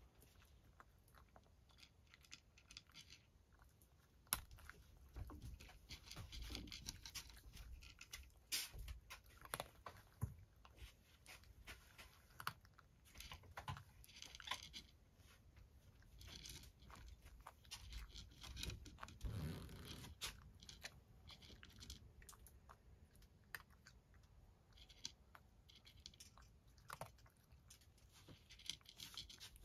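A cat eating dry kibble from a wooden tray: quiet, irregular crunching and chewing of the hard pellets.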